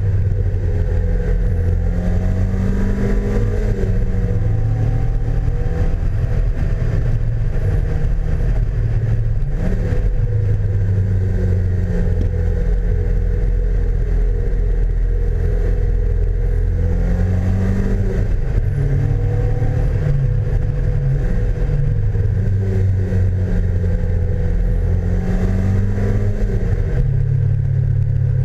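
Super Seven sports car's engine running at road speed, its pitch rising and then dropping back about four times as it accelerates and eases off, with heavy wind rumble on the bonnet-mounted camera.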